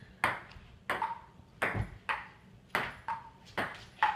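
A table tennis ball clicking off the paddles and the table in a steady rally, about two hits a second, some with a short ringing ping.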